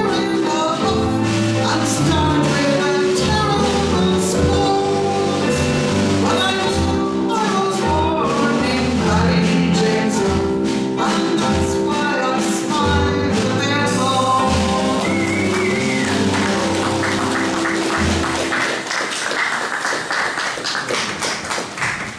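Live performance of a song, singing with instrumental accompaniment, that ends about 14 seconds in; the audience then breaks into applause.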